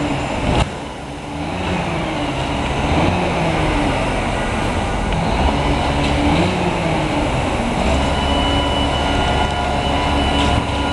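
1980 Autocar refuse truck with a Leach 2RII rear-loading packer: its engine revs up and down several times, over a steady heavy rumble. A deeper rumble and a steady high whine join about eight seconds in.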